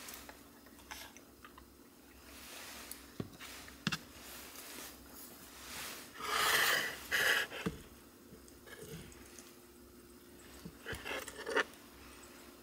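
Someone eating from a metal frying pan: sharp taps and clinks of chopsticks and fork against the pan, with soft chewing. About six seconds in, the loudest sound is a longer scraping as the pan is moved off the tabletop cooker. A faint steady hum sits underneath.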